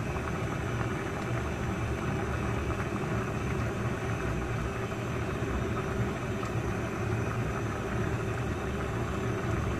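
Stainless steel pot of vegetables and shrimp boiling hard on a gas burner, a steady low rushing noise with no breaks.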